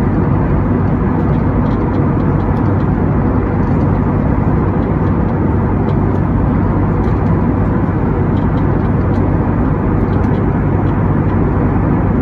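Steady airliner cabin noise inside an Airbus A321neo, a constant rumble of engines and airflow with a low hum underneath.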